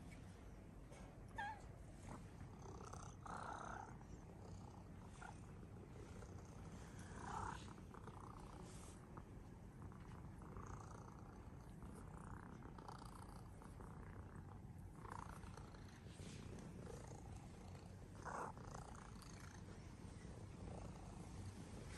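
Sphynx cat purring faintly and steadily as it is stroked, a contented low rumble.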